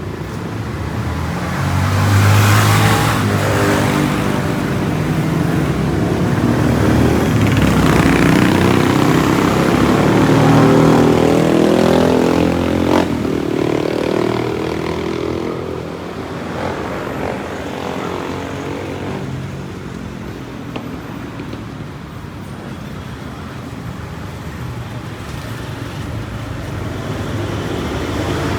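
Street traffic: motor vehicle engines passing close by, loudest in the first half, with one engine rising in pitch around the middle. The street is quieter in the second half, with a single sharp click near the middle.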